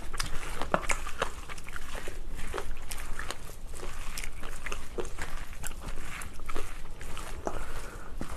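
Metal spoon stirring and scraping sticky mixed rice around a stainless steel bowl while mixing bibimbap. Wet squelching with irregular sharp clinks of the spoon against the bowl.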